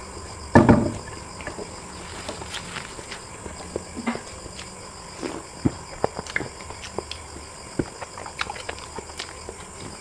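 Mouth sounds of someone eating spicy chicken feet: scattered small clicks of chewing and lip-smacking, with one louder, fuller noise about half a second in.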